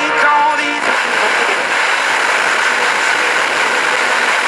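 Toshiba RT-S93 boombox on the AM band: a snatch of station audio for under a second, then steady static hiss from the speaker, the set getting no clear AM station.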